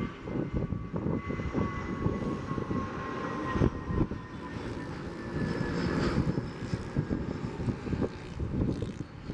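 Jet engines of a Boeing 777-300ER on the runway (GE90 turbofans): a rough rumble with a thin whine that slowly falls in pitch.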